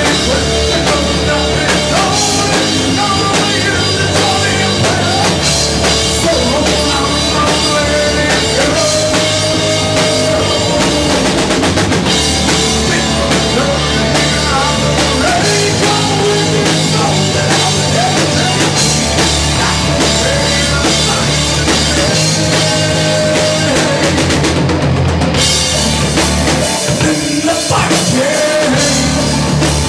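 Rock band playing live, with a drum kit driving the song at a steady loud level.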